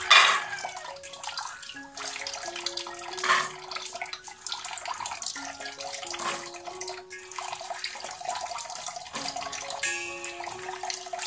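Tap water running and splashing into a stainless steel bowl as hands rub and rinse shelled pigeon peas, with louder splashes at the start and about three seconds in. Background music plays underneath.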